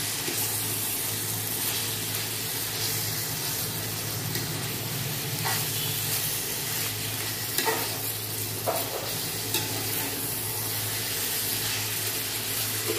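Minced meat and onions sizzling in a steel kadhai as a perforated steel spoon stirs and scrapes them, with a few sharp clicks of the spoon against the pan in the middle. The ginger-garlic paste is being fried off. A steady low hum runs underneath.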